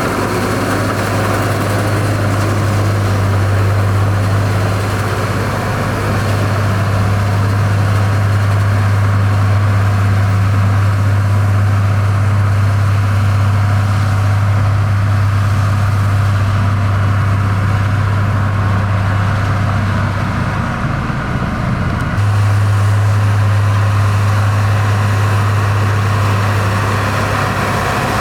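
Heavy diesel engine of earthmoving machinery running steadily with a deep, even hum; the hum falters briefly about three-quarters of the way through, then resumes at the same level.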